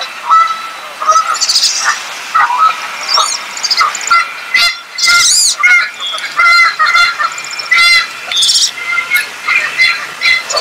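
Wood ducks calling over and over: a busy run of short squealing notes and thin high whistles that rise and fall, often overlapping.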